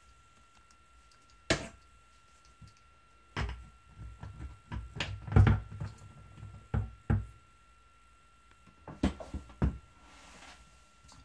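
IKEA TUPPLUR roller blind tube being handled and its plastic end caps fitted onto metal wall brackets: sharp clicks and knocks. There is one click, then a busy cluster of knocks a few seconds in, and a few more clicks near the end.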